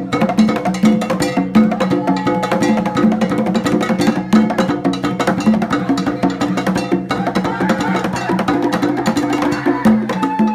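Live band playing Latin rumba dance music: a repeating bass line under steady, sharp percussion clicks and drums.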